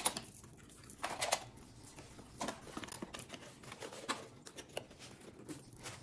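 Paper and cardboard packaging being handled and opened: scattered short rustles, crinkles and light clicks, the loudest right at the start and about a second in.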